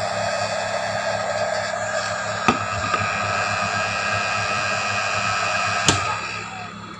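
Small hand-held air blower running steadily with a whine, blowing air over a phone's logic board to cool it after soldering. There are two sharp knocks, and the noise falls away about six seconds in.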